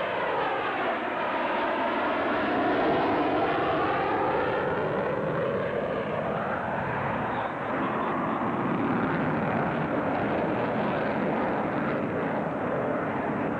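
Jet noise from an F-14 Tomcat's twin engines during a low display pass, steady and loud, with a swooshing sweep in tone that falls and rises again over the first half as the jet passes.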